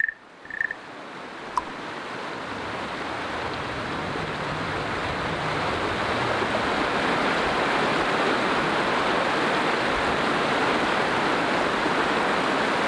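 Shallow river rushing and splashing over stones, a steady rushing that swells over the first few seconds and then holds. Two short high tones and a click sound near the start.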